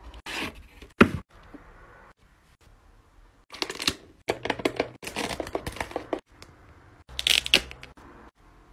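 Thin clear plastic being handled: a cup and lid clicking and crackling in several short spells, with one sharp click about a second in. Near the end a drink pouch crinkles.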